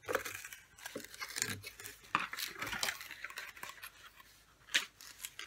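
A cologne bottle and its cap being handled: a string of light clicks, clinks and rustles, with one sharper click near the end.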